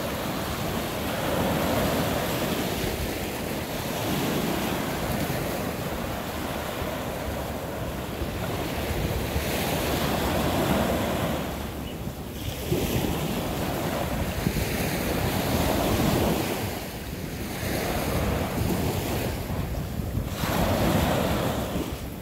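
Small ocean waves washing onto the shore of a bay, the surf swelling and fading every few seconds, with wind rumbling on the microphone.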